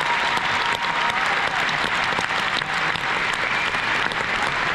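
Crowd applauding, a dense, steady clatter of many hands clapping.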